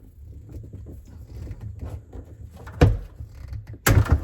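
Plastic under-sink water filter cartridge being twisted off its head by hand: small clicks and rubbing, a sharp knock nearly three seconds in and a louder knock just before the end.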